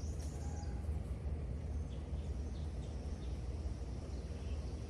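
Outdoor ambience with the chainsaw stopped: a steady low rumble and a few faint bird chirps.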